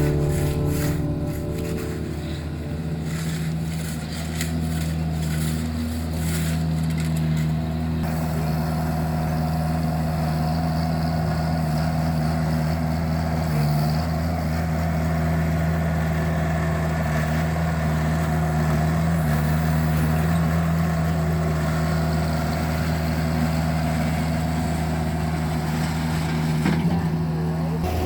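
Vermeer mini skid steer's engine running steadily under work. Short clicks and knocks sound over it for the first several seconds.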